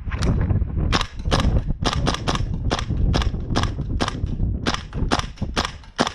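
Tokyo Marui AKX gas blowback airsoft rifle firing shot after shot, about three a second, sharp cracks that come closer together toward the end.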